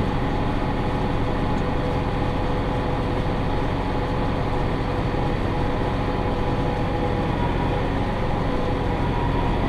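Massey Ferguson 5610 tractor engine running at a steady speed while pulling a working John Deere 468 round baler, a constant drone and rumble with no change in pitch.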